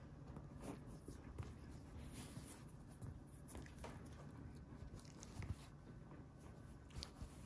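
Faint rustling and scattered light taps of a puppy shifting about on a leather couch and being touched by a hand, over quiet room tone.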